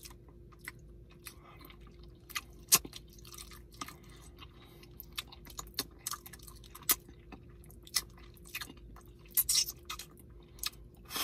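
Close-up mouth sounds of a man chewing curry chicken: irregular wet smacks and clicks, with a faint steady hum underneath.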